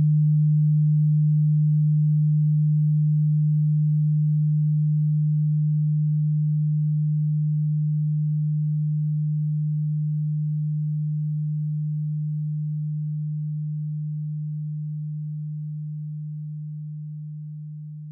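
A single steady, low pure tone, a synthesized sine wave, slowly fading out, with the fade quickening near the end.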